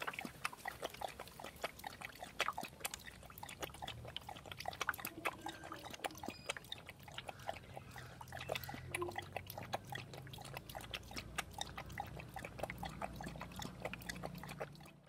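A dog lapping water: a rapid, irregular run of wet clicks and small splashes from its tongue scooping the liquid.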